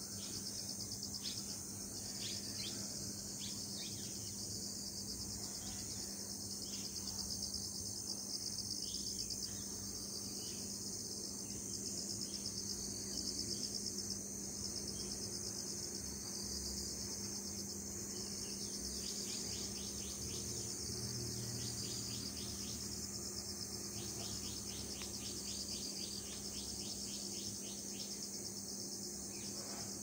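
A steady chorus of insects trilling high and fast, with a few short bird chirps now and then and a low steady hum underneath.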